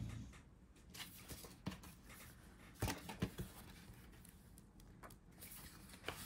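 Paper rustling and a few light taps as the sheets of a sticker book are lifted and handled, the loudest tap a little before halfway.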